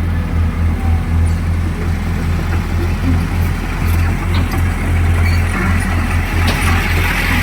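Sumitomo LS260 excavator's diesel engine running steadily with a low, pulsing throb. A higher hiss grows in from about five seconds in.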